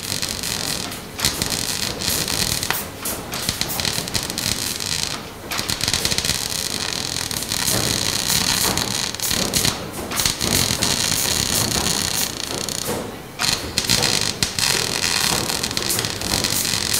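Electric arc welding: a steady crackling sizzle from the welding arc, broken a few times by short pauses where the arc stops and restarts.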